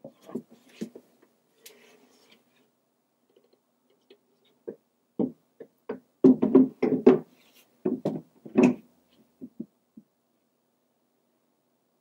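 Half-inch birch plywood shelf knocking and bumping against aluminum framing as it is worked into a cabinet opening and set in place: a scatter of sharp knocks, thickest about five to nine seconds in.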